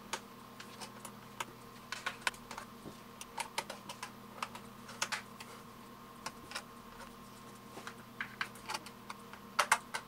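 Quiet, irregular small clicks and taps of a Phillips screwdriver working out the tiny screws of a 2009 13-inch MacBook Pro's aluminium bottom case, and of the screws being handled and set down.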